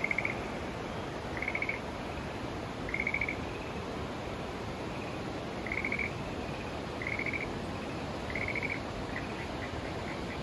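An animal's short trilled call, repeated about every second and a half with fainter calls near the end, over the steady rush of river water.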